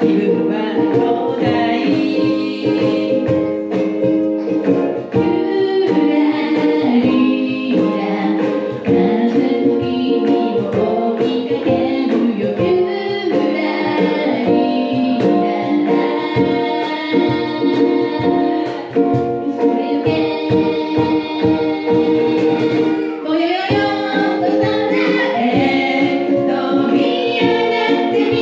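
A ukulele trio singing together over strummed ukuleles: a lively sing-along song performed live.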